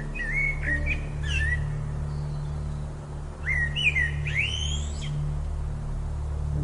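A songbird chirping in two short phrases of quick rising and falling whistled notes, the second starting about halfway through, over a steady low drone of ambient music.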